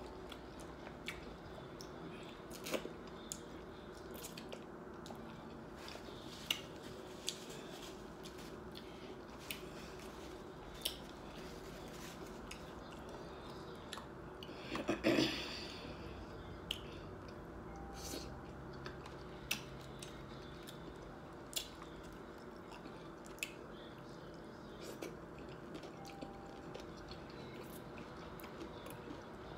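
Close-up chewing and mouth sounds of someone eating crunchy hard-shell tacos: scattered small crunches and wet clicks, with a louder burst about halfway through.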